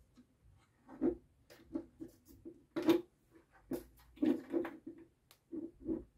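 Irregular knocks, clicks and rustling as control-panel lamp and push-button units, wires and a screwdriver are handled on a desk, the sharpest click about three seconds in.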